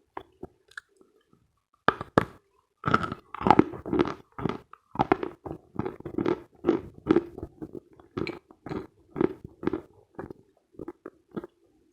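Close-miked crunching of Khrapovsky chalk being bitten and chewed: a few faint clicks, then from about two seconds in a run of crisp crunches, about two a second.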